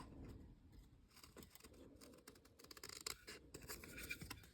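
Faint pencil scratching as it writes on paper, in short irregular strokes.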